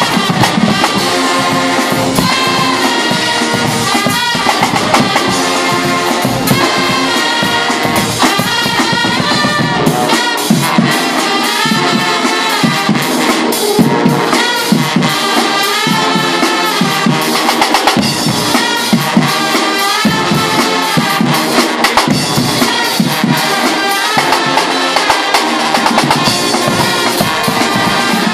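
Guggenmusik carnival brass band playing loudly: trumpets, trombones and sousaphones over a beat of bass drums, snare drums and crashing cymbals, with sharp drum strokes throughout.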